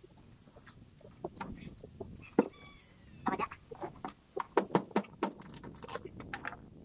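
Sea urchins being cracked open by hand: a quick series of sharp cracks and clicks of breaking shell and spines, coming thickest in the second half.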